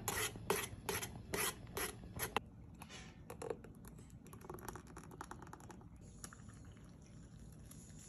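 Metal spoon stirring taro milk in a hammered metal saucepan, scraping against the pan in even strokes about three a second. After about two and a half seconds the strokes stop, giving way to fainter spoon clinks and scrapes.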